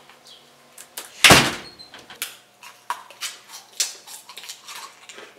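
Front door slammed shut about a second in: a single loud bang. After it comes a run of light crinkles and clicks from plastic freezer-pop sleeves being handled.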